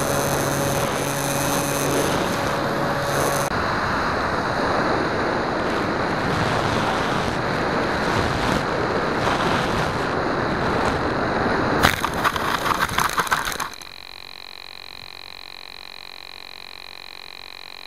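Onboard the Skywalker 1900 foam FPV plane: the electric motor's pitched whine under heavy wind rush, the motor tone stopping about three seconds in and leaving only the rush of air as it glides down. About twelve seconds in, a quick series of knocks and scrapes as it touches down and slides in the grass, then the rush stops abruptly, leaving a quieter steady high electronic whine.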